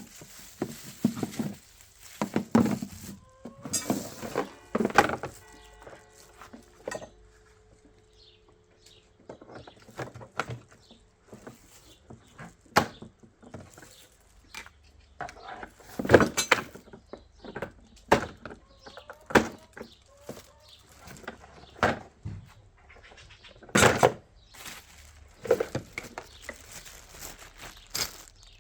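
Plastic mower parts and cardboard packaging being handled: irregular knocks, clatter and rustling, with a short squeaky tone about five seconds in.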